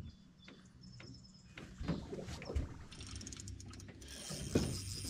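Fishing reel ticking quickly as its handle is cranked to take in line, growing louder over the last couple of seconds. A few light knocks on the aluminium boat come in the first half.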